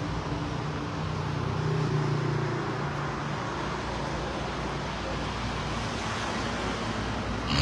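Street traffic: vehicle engines running and passing on the road, with one engine growing louder about two seconds in.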